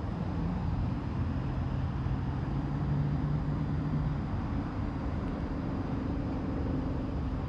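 Low steady rumble of a motor vehicle's engine, its hum swelling about three seconds in and then fading away.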